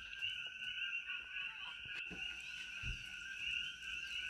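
A steady chorus of many coqui frogs calling at once, heard as a continuous high, two-pitched din with faint knocks now and then.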